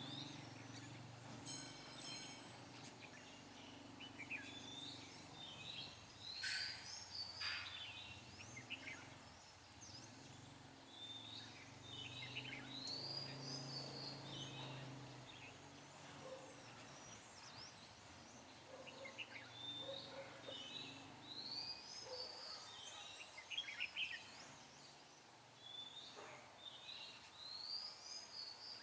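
Red-whiskered bulbuls singing: short warbled phrases that rise and fall, repeated every few seconds, over a low steady background hum.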